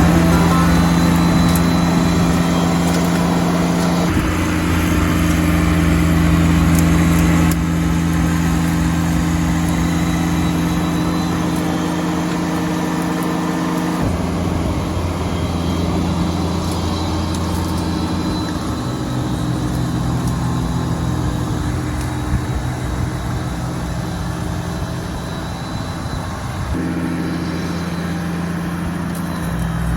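Engine of a Kubota BX2380 compact tractor running with its front-mounted snowblower. The engine note steps up and down several times as the load changes.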